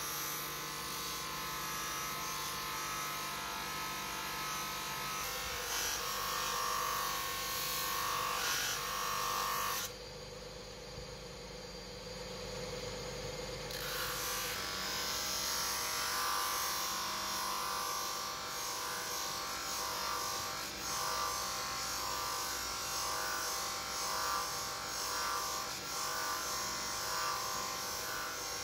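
Electric bench grinder motor running with a wheel spinning on its shaft extension, a small steel knife blade pressed against the wheel: a steady motor whine with a rubbing hiss. The hiss drops away for a few seconds partway through, then returns.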